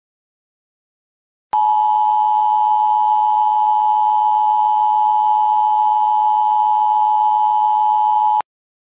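Emergency broadcast attention signal: a loud, steady two-pitch electronic alert tone that starts about a second and a half in, holds for about seven seconds and cuts off suddenly.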